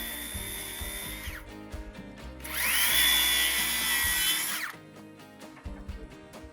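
Power tool motor whining at high speed in two runs. The first stops about a second and a half in. The second, louder one spins up about two and a half seconds in, holds steady and winds down near five seconds.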